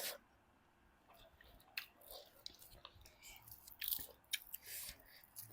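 Close-miked chewing and biting of pork: scattered wet mouth clicks and soft crunches, starting about a second in.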